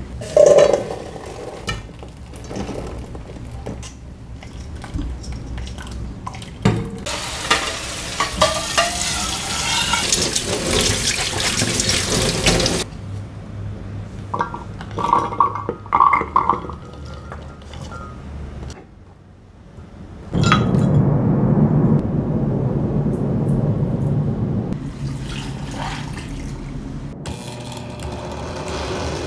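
Cooked black soybeans clattering into a glass blender jar, then a few spoon clinks against the glass. About two-thirds of the way in, liquid pours into the jar for several seconds.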